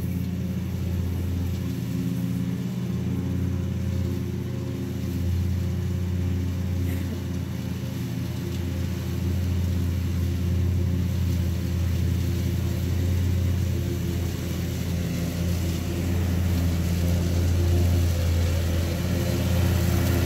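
Zero-turn lawn mower's engine running steadily, a little louder in the second half.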